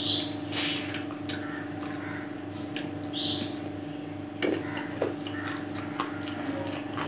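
Close-up eating sounds of rice being chewed by hand-fed mouthfuls: wet lip smacks and mouth clicks, with three short squeaky sucking sounds from the lips. A steady low hum sits underneath.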